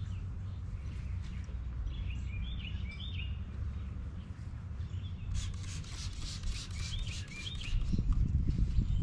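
Small birds chirping in short phrases twice, over a steady low rumble that grows louder near the end. About midway comes a quick run of rubbing strokes from a gloved hand wiping across the truck's painted door.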